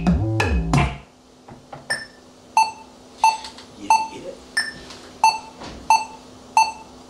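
A music beat from the keyboard setup plays for about a second and stops. Then an electronic metronome click beeps a steady count of about one and a half beats a second, with a differently pitched accent on every fourth beat.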